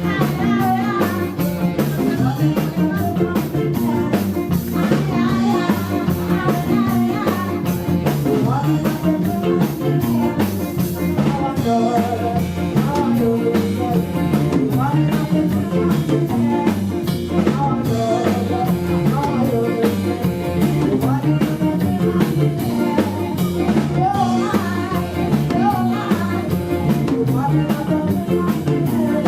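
Live band playing a rock song with guitar, drum kit and a singer, loud and steady throughout.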